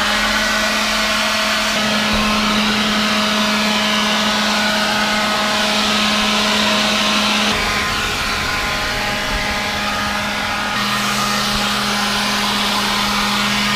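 Ryobi cordless leaf blower running steadily, a loud rush of air over a motor hum; the hum shifts slightly in pitch a couple of times.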